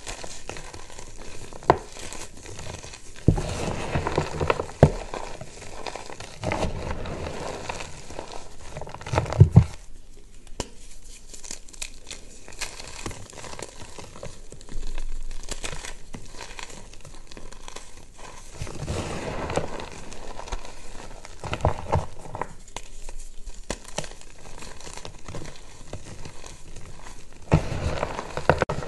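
Reformed gym chalk bars being crushed and crumbled by hand: irregular dry crunching and crackling with sharp snaps as chunks break, easing to a softer hiss of powder sifting through the fingers partway through.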